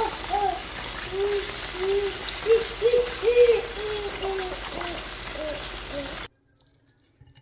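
Chicken pieces deep-frying in hot oil: a steady sizzle, with a run of short low tones that rise and fall over it. The sound cuts off abruptly about six seconds in.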